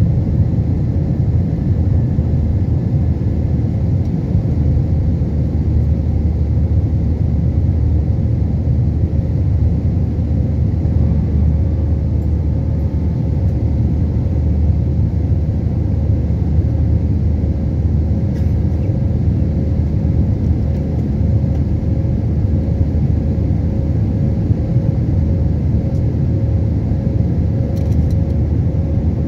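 Cabin noise inside an Airbus A320 climbing after takeoff: a steady low rumble from its IAE V2500 turbofan engines and the airflow over the fuselage, with a steady hum running through it.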